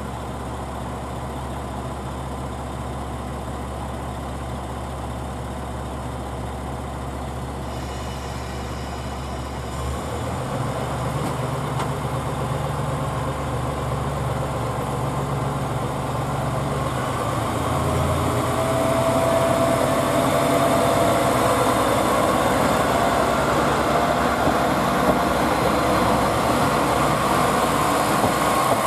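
KiHa 47 diesel railcar's engines idling with a steady low hum, the engine note changing about ten seconds in, then growing louder from about eighteen seconds in as the railcar powers up and pulls away.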